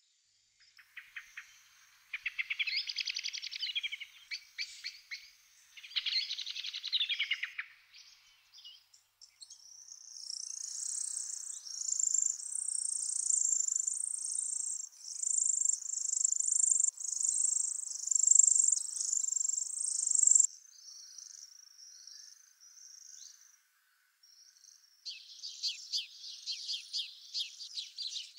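European greenfinch nestlings begging while an adult feeds them at the nest. A run of high, repeated calls lasts about ten seconds mid-way, with rapid buzzy chattering calls at the start and again near the end.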